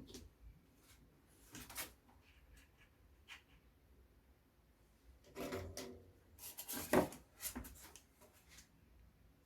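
Scattered handling noises: short rubs, scrapes and light knocks, with a busier run of them about five to eight seconds in.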